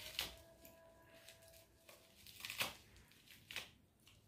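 Plastic bubble wrap rustling and crinkling as it is unwrapped by hand, with about three sharp crackles.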